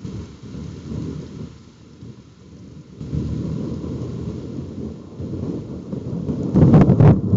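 Thunder rumbling low, growing louder in steps, then breaking into loud sharp cracking peals near the end.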